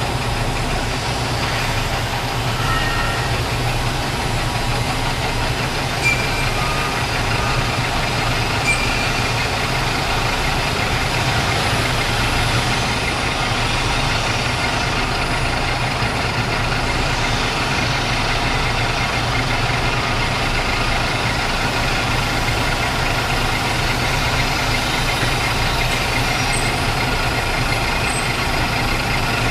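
Metal lathe running steadily while its tool faces the end of a pipe, a constant motor and spindle hum with cutting noise over it. A few short, faint high squeaks come through in the first third.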